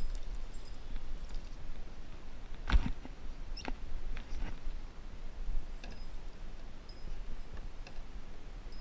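Handling noise in a kayak as a landing net holding a bass is lifted aboard: a sharp knock about three seconds in and another a second later, then a few light clicks, over a steady low rumble, with a few faint short high squeaks.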